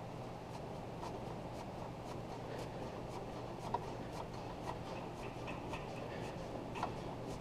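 Hand tool working a seized exhaust manifold bolt back and forth in a cast-iron cylinder head: faint scraping, small metal clicks and a few short squeaks as the bolt creeps a little at a time.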